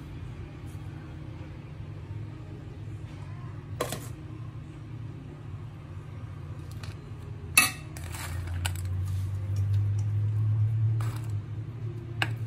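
Steel spoon clinking against a cooking pot while rice is spread into layers: a few scattered sharp clinks, the loudest a little past halfway, over a steady low hum that grows louder in the second half.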